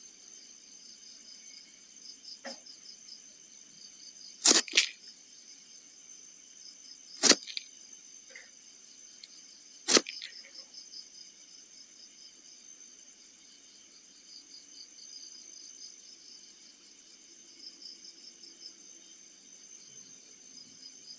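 Crickets chirping steadily, with a few sharp knocks of unknown source: two close together about four and a half seconds in, one near seven seconds and one near ten seconds.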